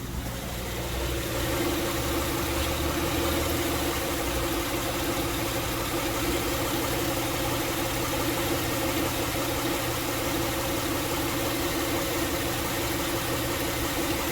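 2006 Honda Pilot's 3.5-litre V6 running steadily in drive against the parking brake, under load, with no ticking: the new serpentine belt auto tensioner has cured the tick.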